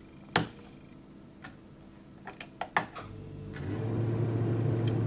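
A few sharp clicks of plastic Lego bricks being handled and pressed together on a table. About three and a half seconds in, a coffee vending machine starts running with a steady low hum that grows louder and carries on.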